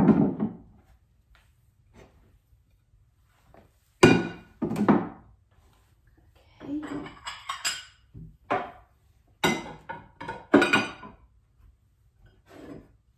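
Stoneware plates and mugs set down on a wooden hutch shelf: a series of sharp knocks of ceramic on wood, with clinks of dish against dish, the loudest at the start and about four seconds in.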